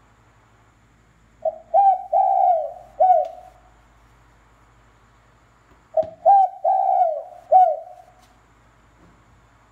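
AT100 battery bird-lure speaker playing a recorded bird call: two phrases of four or five short, falling notes, one starting about a second and a half in and the next about six seconds in.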